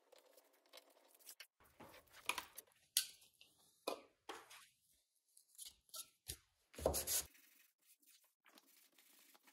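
Blue painter's tape being peeled off a thin sheet of wood veneer in several short, faint pulls, with light handling noise of the veneer between them and a louder knock about seven seconds in.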